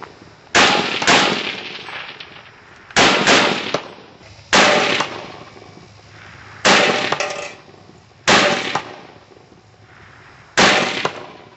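Semi-automatic Browning 1919A4 rifle fired one shot at a time, about eight shots at uneven intervals, each followed by a long echo.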